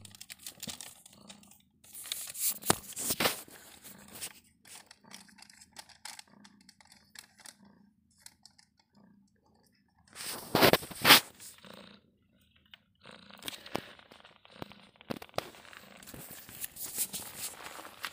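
Irregular crinkling and rustling of a plastic sheet as kittens scramble on it. It is loudest in two bursts, about two to three seconds in and again around ten to eleven seconds in.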